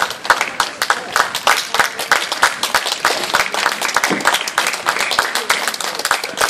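A group of people clapping their hands, many sharp, irregular claps overlapping, with voices mixed in.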